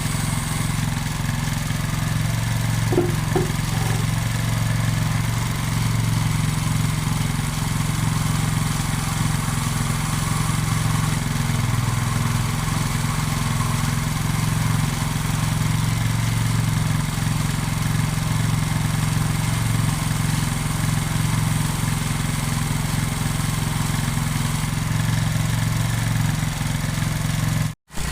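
Motorcycle engine running steadily, with a couple of light clicks about three seconds in and a brief cut-out near the end.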